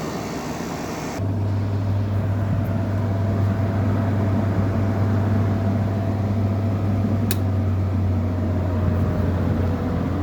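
Air conditioner running: a steady low hum from its compressor and fan motor comes in abruptly about a second in, with one sharp click about two-thirds of the way through.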